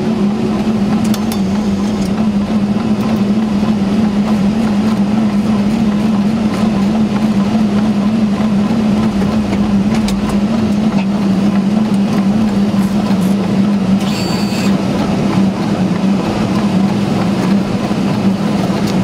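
Steady cockpit noise of a Boeing 747-400 rolling slowly on the ground after landing: an even rushing of air and rain with a constant low hum. A short high-pitched burst sounds about three-quarters of the way through.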